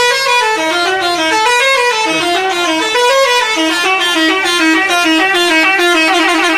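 Telolet basuri musical bus horn playing a tune of quick stepped notes, loud and starting abruptly.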